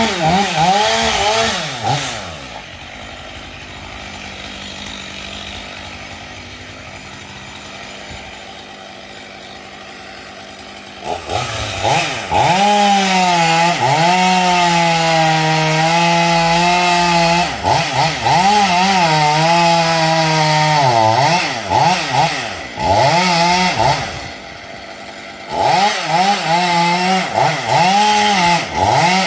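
Two-stroke chainsaw idling steadily for several seconds, then revved hard and run at full throttle, its pitch dipping and recovering as the chain bites into wood. It drops back to idle briefly near the end, then is revved again.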